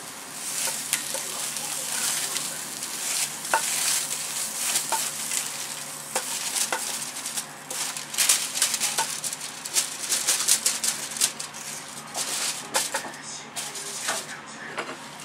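Wooden spatula scraping and pushing crisp-fried sweet shrimp heads across aluminium foil out of a hot pan onto a plate. Foil rustles and the hot pan crackles and sizzles, with many sharp clicks as the hard shells tumble, busiest in the middle.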